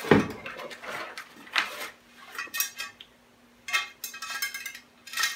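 Bicycle spokes clinking and rattling against each other and the hub as a set of spokes is slid through the hub flange while lacing a wheel, in a series of separate metallic clinks.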